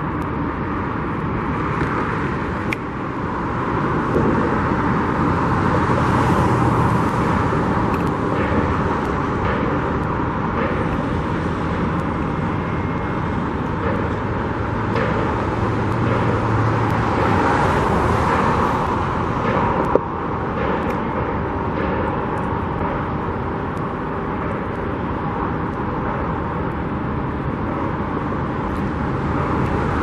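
Road traffic passing: a steady hum of tyres and engines that swells as vehicles go by, about six and again about eighteen seconds in, with one sharp click about two-thirds of the way through.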